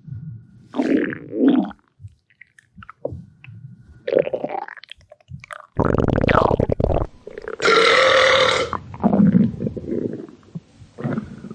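A string of loud human burps, about half a dozen separate ones of different lengths, the longest running about a second near the middle, over low stomach gurgling and rumbling.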